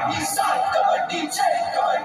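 A kabaddi raider's sing-song "kabaddi, kabaddi" chant, held in short repeated phrases during a raid.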